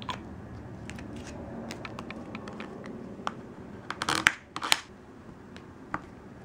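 Plastic card scraping excess nail polish off a metal nail stamping plate: scattered light clicks and scratches, with two louder scrapes about four seconds in.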